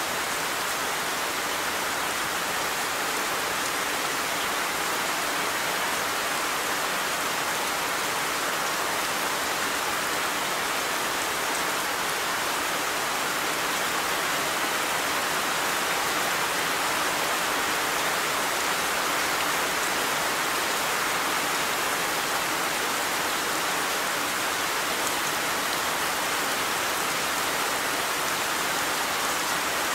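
Steady rain falling, an even continuous hiss of drops on surfaces with no thunder or single louder strikes.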